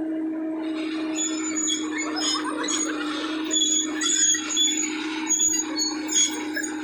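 Excavator running with a steady hum, and from about a second in, repeated high metallic squeals and clanks.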